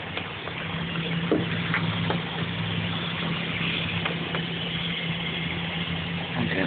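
2009 Chevy Silverado 1500's 4.8-liter V8 idling steadily with the hood open, on a winter cold morning. A faint knock comes about a second and a half in.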